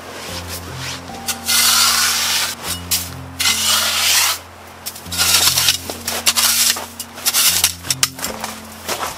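Repeated rough scraping strokes, each about a second long and coming every second or two, over background music with a steady bass line.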